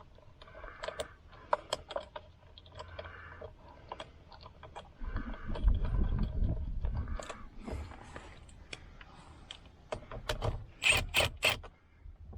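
Hand work on steering-wheel parts: scraping, rubbing and small clicks, a low rumbling knock in the middle, and a quick run of sharp clicks near the end.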